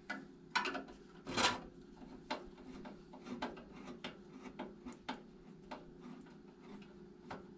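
Hand screwdriver turning out a rusted screw holding a furnace transformer to the sheet-metal cabinet: a run of irregular small clicks and scrapes of metal on metal, two louder ones about half a second and a second and a half in, over a faint steady hum.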